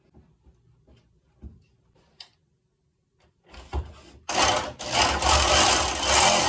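Light handling clicks, then an electric jigsaw starts about three and a half seconds in and cuts into a plywood deck, running loud and steady from about four seconds in.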